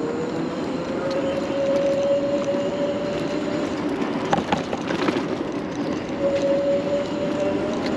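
Zooz electric bike's motor whining under power, rising a little in pitch and then holding, fading out about halfway and coming back near the end, over a steady rush of tyre and wind noise. A few clicks and rattles about halfway through.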